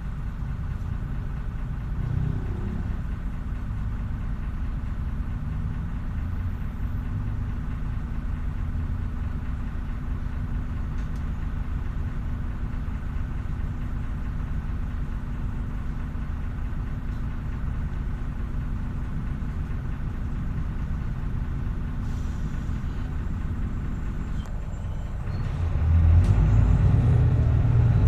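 Irisbus Agora S city bus's diesel engine idling steadily, heard from inside the cabin. About 25 seconds in it gets louder and deeper as the engine revs and the bus pulls away.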